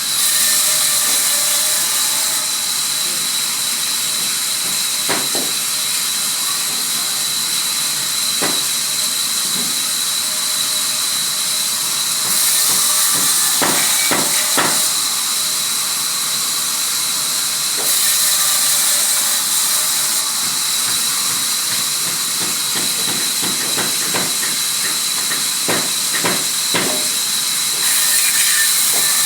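Sawmill machinery running with a steady high hiss and a thin whine. The hiss grows louder for a few seconds at a time, several times over, and scattered knocks break through it.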